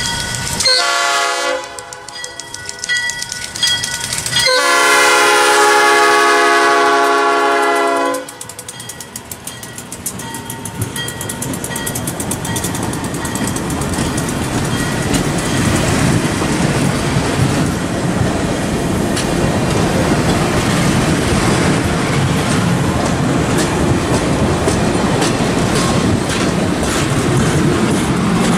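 Diesel locomotive horn: a short blast, then a long blast of nearly four seconds. Then the passenger train rolls past with a steady clatter of wheels over the rails, growing louder as the coaches go by.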